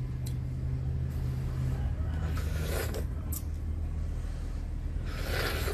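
A low, steady engine drone, with two short rustling noises about two and a half and five seconds in.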